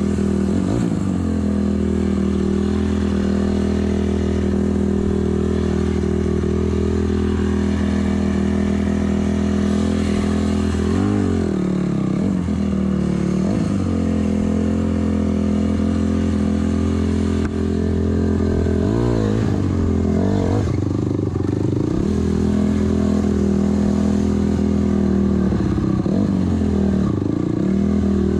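Honda CRF250R's single-cylinder four-stroke engine running under way, mostly at a steady pitch. Several times the revs dip briefly and climb back, as the throttle is rolled off and on again.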